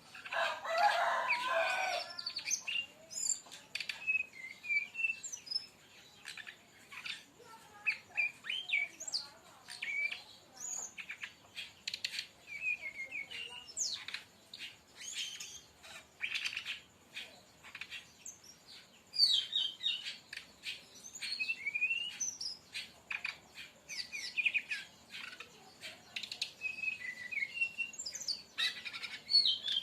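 Brown-chested jungle flycatcher (sikatan rimba dada coklat) singing in rapid bursts of varied chirps and quick sliding whistles, with a dense cluster of notes at the start.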